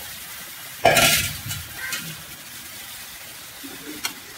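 Spatula stirring marinated chicken pieces into the frying masala in a pan. About a second in there is a sudden loud burst of sizzling and scraping that dies away quickly, then quieter stirring with a couple of light clicks of the spatula against the pan near the end.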